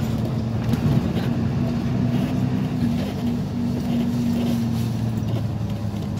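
Bus engine running steadily, a low even hum with a second, higher tone above it.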